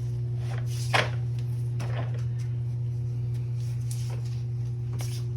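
A few sharp clacks and knocks of tools and parts being handled during an oil change, the loudest about a second in, over a steady low hum.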